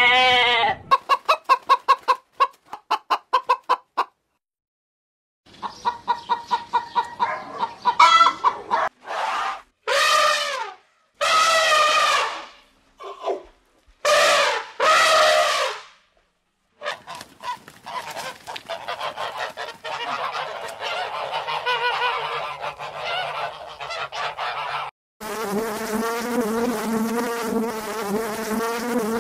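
A run of animal calls: rapid repeated short calls, then several long calls that fall in pitch. About 25 s in, the calls give way to a wasp buzzing steadily.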